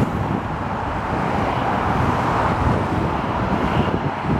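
Steady rushing rumble of the Airbus A380-861's four Engine Alliance GP7200 turbofan engines running at close range.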